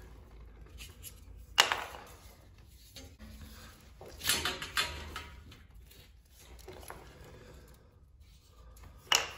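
Hands handling copper pipe, a brass-look copper press fitting and a marker pen. There is a sharp click about a second and a half in, a short cluster of knocks in the middle and another sharp click near the end.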